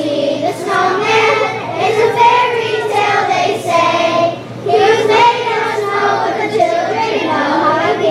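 A group of elementary-school children singing a Christmas song together, with a short break between phrases about four and a half seconds in.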